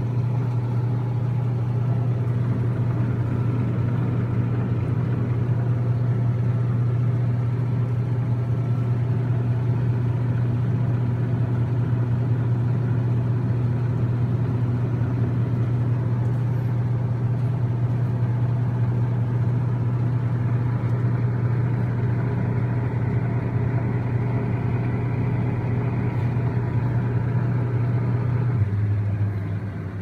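Haier top-load washing machine running with a steady mechanical hum. Near the end the hum drops slightly in pitch and becomes quieter.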